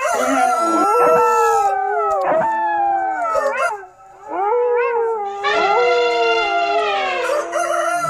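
Several canines howling at once in long, wavering, overlapping howls, with a short break about halfway through.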